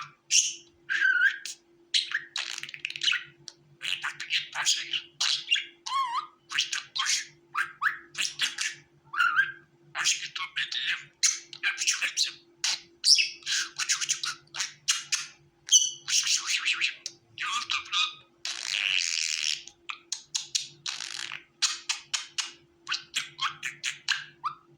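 Budgerigars chirping and warbling in a quick, almost unbroken chatter of short, high calls. A faint steady low hum sits underneath.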